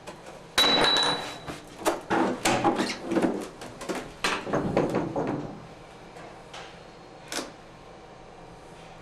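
Hard objects being handled: a quick run of knocks, clacks and scrapes with a brief high squeak near the start, then one sharp click a couple of seconds later.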